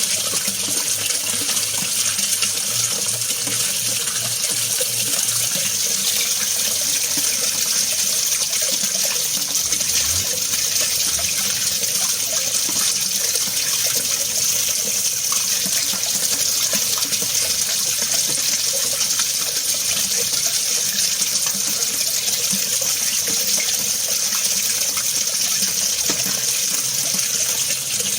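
Water being mixed, making a steady, even rush of water with no pauses.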